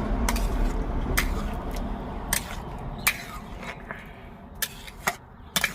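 Utensils and dishes knocking as food is served out: a handful of scattered short clicks and clinks, over a low background rumble that fades.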